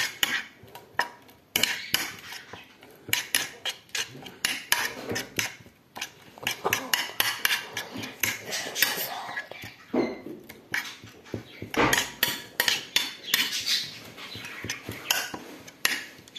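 A spoon clinking and scraping against a bowl while a wet mixture of shredded paper napkins, water, shampoo, soap and paint is stirred, with quick irregular knocks all the way through.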